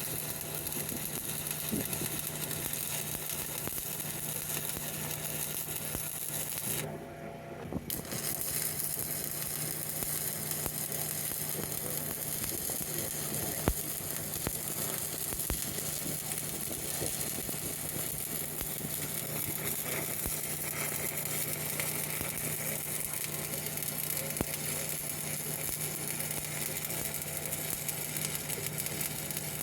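Stick welding arc crackling steadily as a 7018 rod burns, over a steady low hum. The arc breaks off for about a second roughly a quarter of the way in, then strikes again and carries on.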